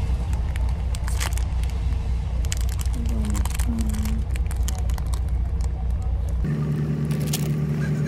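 Coach cabin noise: a steady low rumble of the bus's engine and road, with crinkling snack wrappers and a leather bag being rummaged. About six and a half seconds in, the rumble switches suddenly to a steadier, pitched engine hum.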